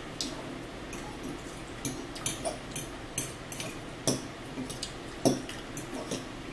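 Forks and spoons clinking and scraping against bowls while eating, in short irregular clicks, a few close together at times.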